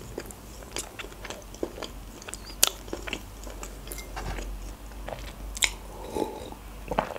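Close-miked chewing of soft pancakes: wet mouth clicks and smacks at irregular moments. Near the end comes a sip of tea from a mug.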